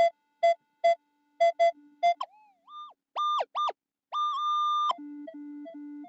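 Minelab Equinox 800 metal detector target tones as the coil sweeps over the ground. Six short mid-pitched beeps come first, then two high blips and a longer high tone about four seconds in, then a low tone in broken pulses near the end.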